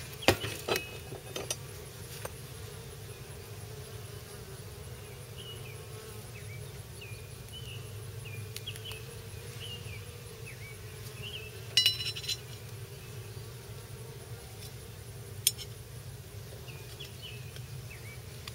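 Honeybees buzzing steadily around an opened hive. A few sharp metallic clinks, with a short cluster of them about twelve seconds in.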